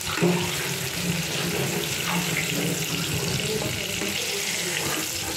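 Eggplant pieces sizzling steadily in hot frying oil in a kadai, as a spatula stirs them and lifts them out to drain.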